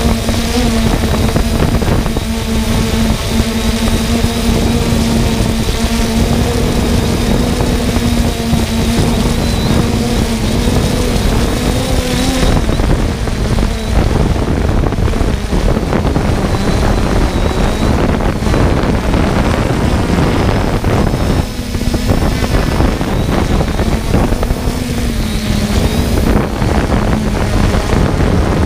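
Multirotor drone's motors and propellers humming at a steady pitch, mixed with wind rushing over the microphone. The hum fades out for several seconds about halfway through, returns, and drops away again near the end.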